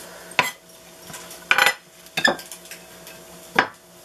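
Kitchen knife knocking and clinking against a wooden cutting board and a dish as chopped lettuce is scraped off the board: four sharp knocks about a second apart, the last the loudest.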